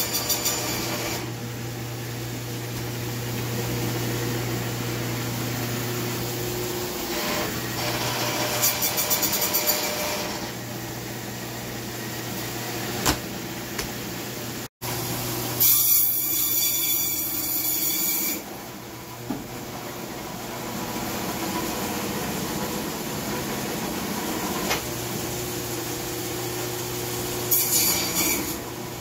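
Hobart meat bandsaw running with a steady motor hum while its blade cuts through a bear carcass. Several bouts of harsher, brighter rasping come as the blade goes through meat and bone.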